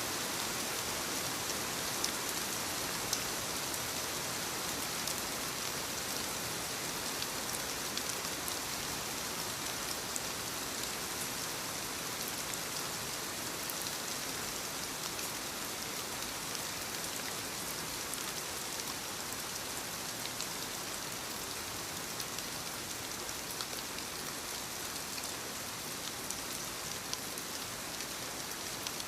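Steady rain falling, a dense hiss with many small drops ticking on surfaces.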